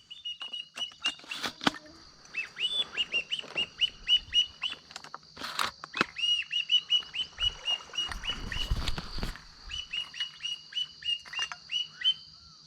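A flock of black-bellied whistling ducks calling: runs of short, high, down-slurred whistles, many notes in quick succession. Insects trill steadily behind them, and there is one sharp click a little before the middle.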